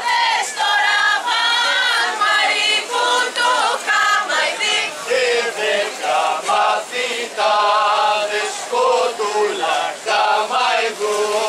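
A group of voices singing a traditional Greek folk dance song, with no instruments.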